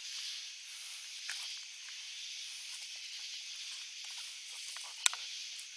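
A steady hiss, with scattered faint clicks and rustles from handling and one sharp click about five seconds in.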